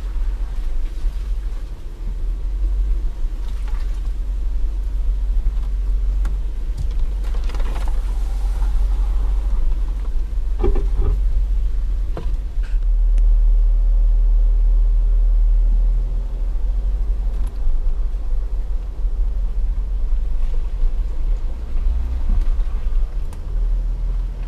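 Off-road 4x4 crawling slowly over a rough dirt trail: a steady low engine and drivetrain rumble, with a few sharp knocks and creaks from the body and suspension a little before the middle.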